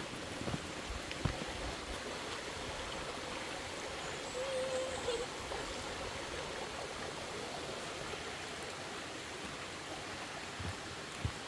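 Steady rush of flowing stream water, with a brief wavering tone about four and a half seconds in.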